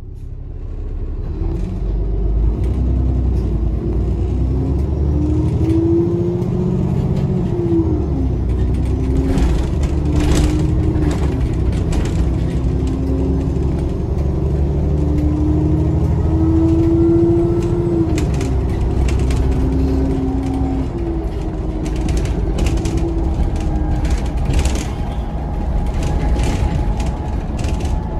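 Bus engine and automatic gearbox heard from inside the bus as it accelerates. The engine note climbs and then drops back at each gear change, three times, over a steady low rumble, with scattered clicks and rattles.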